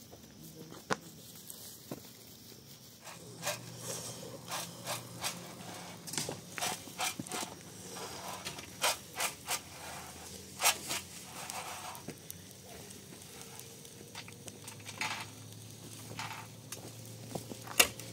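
Irregular sharp clicks and light knocks with some scraping, coming in spells with a loud click near the end, over a faint steady low hum.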